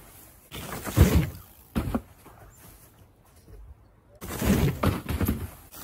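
Mountain bike going over a plastic jump ramp on packed snow: tyres crunching and knocking on snow and plastic in short bursts, about a second in, briefly near two seconds, and again in a longer run from about four to five and a half seconds.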